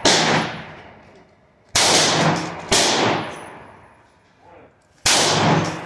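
Hi-Point handgun firing four shots, unevenly spaced: one right at the start, two close together about two seconds in, and one more near the end. Each loud crack trails off in a long echo under the range roof.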